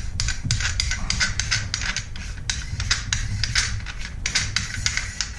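Metal parts of a Panzer AR-12 Pro semi-automatic 12-gauge shotgun clicking and rattling as they are worked by hand: a rapid, irregular run of small sharp clicks, over a steady low hum.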